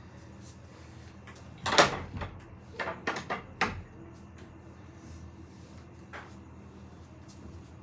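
Plastic water bottle being handled after a drink: one sharp knock, then a quick run of clicks and knocks as it is capped and set down.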